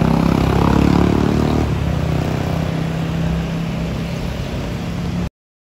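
Airbus A319 airliner climbing out after takeoff: steady low jet engine noise that slowly fades, cut off abruptly about five seconds in.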